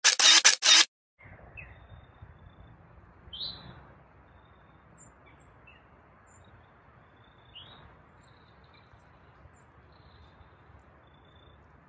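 Three short, loud bursts of noise in the first second, then quiet woodland ambience with wild birds giving short, high chirps now and then, the loudest about three and a half seconds in.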